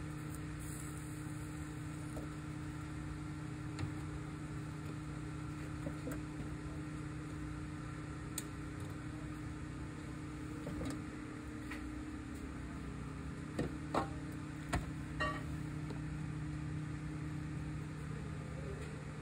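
Steady low mechanical hum of commercial kitchen equipment, with scattered light knocks and clinks of kitchenware being handled, several in quick succession about two-thirds of the way through.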